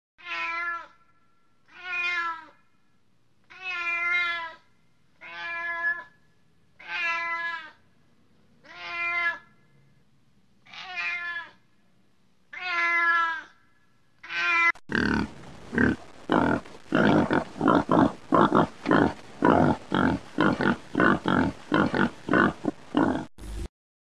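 A domestic cat meowing repeatedly, about nine drawn-out meows at intervals of a second or two. Then, about 15 seconds in, a louder run of quick, rough animal grunting, about three a second, takes over and cuts off suddenly near the end.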